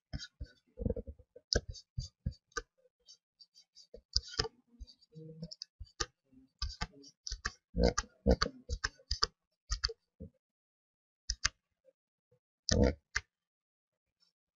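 Computer mouse clicking, many single clicks at an uneven pace, with a pause of a second or two near the end.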